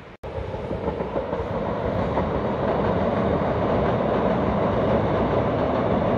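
A train passing: a steady rumble that builds over the first two seconds and then holds.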